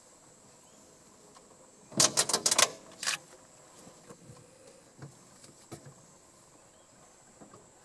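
A quick run of sharp clicks, about seven in well under a second, then a short second cluster and a few faint scattered clicks, over a faint steady high insect drone.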